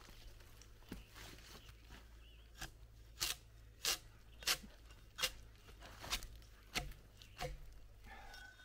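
Long-handled bark spud peeling bark off a log: a run of sharp scraping, tearing strokes, about one every two-thirds of a second, starting a couple of seconds in.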